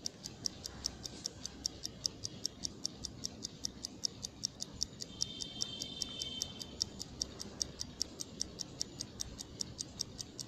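Mechanical watch ticking steadily, about five quick, even ticks a second.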